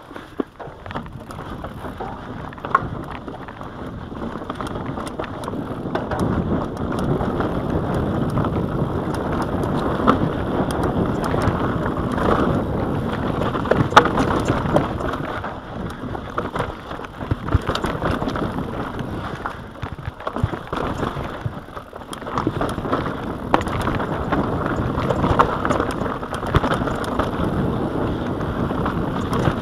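Mountain bike riding down a rocky singletrack, heard from a chest-mounted camera: wind rushing over the microphone, tyres crunching over dirt and stones, and sharp knocks and rattles from the bike as it hits rocks. The rush gets louder about six seconds in and drops away briefly twice, around sixteen and twenty-one seconds.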